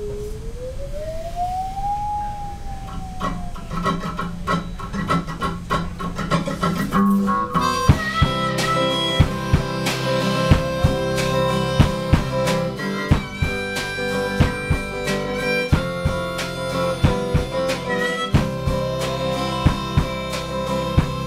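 Live band starting an instrumental intro: a single note glides down and up, strummed guitar comes in about four seconds in, and about eight seconds in drums and the full band join, with harmonica holding chords over a steady beat.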